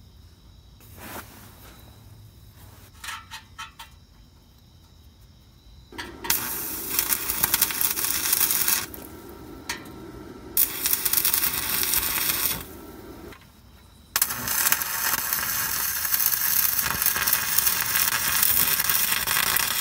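Stick (arc) welding on a muffler: a few light clicks at first, then the flux-coated electrode's arc strikes about six seconds in and runs with a steady crackling sizzle. It stops for a moment around twelve seconds in, then is struck again and keeps crackling.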